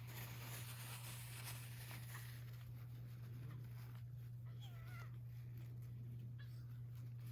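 A very young kitten mewing faintly, a few short, thin, wavering calls about four to five seconds in, over a steady low hum.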